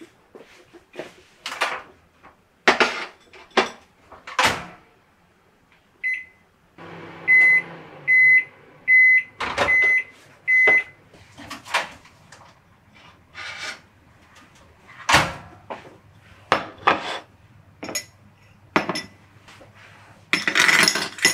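Kitchen appliance beeping: one short beep, then five evenly spaced beeps about two-thirds of a second apart, over a low appliance hum that starts with them and keeps running. Around them are sharp knocks and clatter of things being handled, and near the end a metal straw clinks in a glass.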